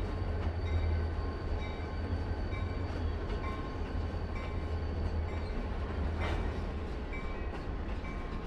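Freight train rolling slowly past behind a diesel locomotive: a steady low engine rumble under the noise of wheels on rail. Brief high squeaks come and go, and there is a short louder clank about six seconds in.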